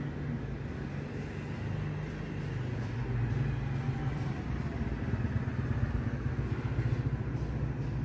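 Steady low rumble of a motor vehicle's engine, growing louder from about three seconds in.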